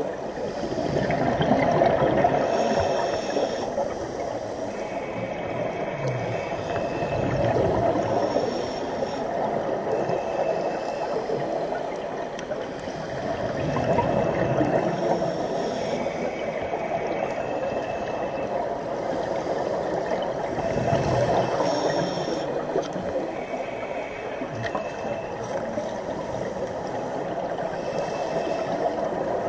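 Scuba breathing heard underwater: bursts of exhaled regulator bubbles gurgling up about every six seconds, with a steady watery hiss between them.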